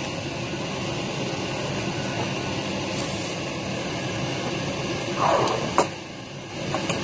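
Steady room hum like an air conditioner, with a short scrape and a sharp click of a utensil against the noodle bowl about five to six seconds in as the noodles are mixed.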